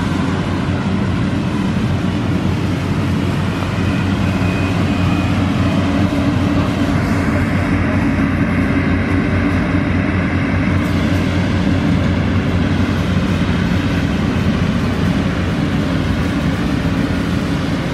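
Yanmar 850 rice combine harvester running steadily under load as it cuts rice, its diesel engine and threshing machinery making a continuous drone.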